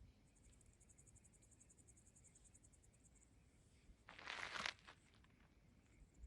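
An insect trilling in a fast, even, high-pitched pulse for about three seconds, then a brief crunch about four seconds in, against a very quiet background.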